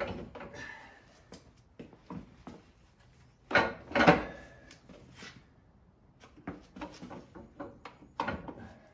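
Knocks, clunks and scraping as a detached snowblower is shifted and settled on a wooden caster dolly on a concrete floor, loudest in a pair of rattling thuds about three and a half seconds in.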